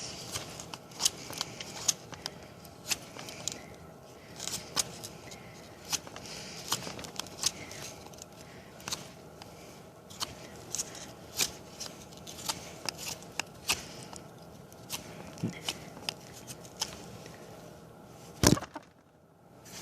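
Gerber Myth folding knife blade shaving curls off a stick to make a feather stick: short, irregular scraping strokes of steel on wood, about one or two a second. A single much louder sharp crack comes near the end.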